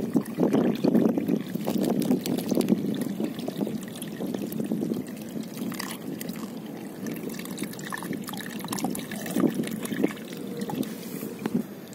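Shallow water trickling and splashing, with small irregular wet splashes from a hand moving in the water.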